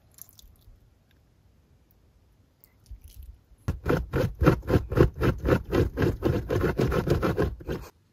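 A small dog scratching rapidly on bedding: a fast, even run of scraping strokes, about five a second, that starts a little before halfway and lasts some four seconds, after a few faint rustles.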